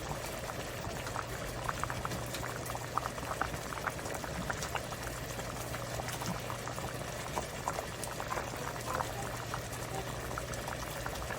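Pot of gochujang stew boiling, a steady bubbling with many small pops.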